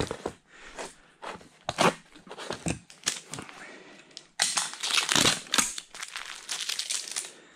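Clear packing tape crackling and ripping as it is pulled and handled on a handheld tape-gun dispenser, in irregular short strokes, with a denser run of crackling about four and a half seconds in.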